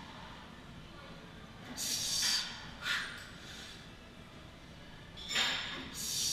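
A man breathing forcefully through a set of heavy barbell back squats with 225 lb: a long breath about two seconds in, a short sharp one just after, and another pair near the end, one round per rep.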